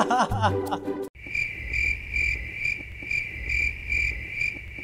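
A man laughing heartily for about a second, cut off abruptly. Then cricket chirping, even chirps about twice a second: the stock "crickets" effect for an awkward silence.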